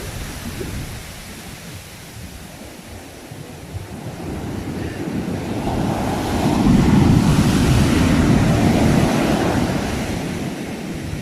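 Sea waves breaking and washing: one surge builds from about four seconds in, is loudest a few seconds later, then fades near the end, with wind noise on the microphone.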